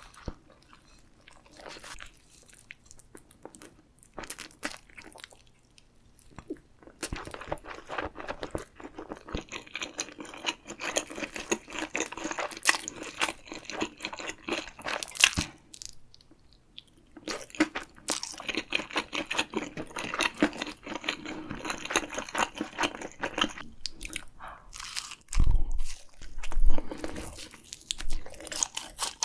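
Close-miked chewing of crunchy food: a few soft bites at first, then steady, dense crunching with a short pause midway. A few loud low thumps come near the end.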